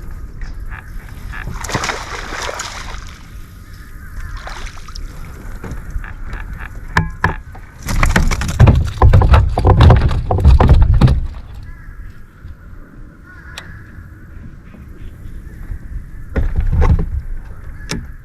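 Water sloshing and splashing around a fishing kayak, with a steady low rumble and a louder stretch of knocks and splashing about eight to eleven seconds in, and again briefly near the end.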